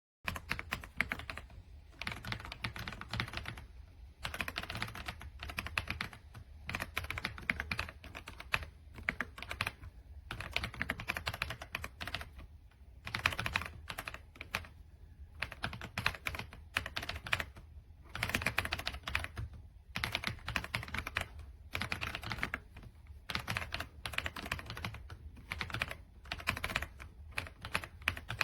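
Fast typing on an RK Royal Kludge R75, a gasket-mounted 75% mechanical keyboard: dense keystroke clatter in runs of a few seconds broken by short pauses, over a steady low hum.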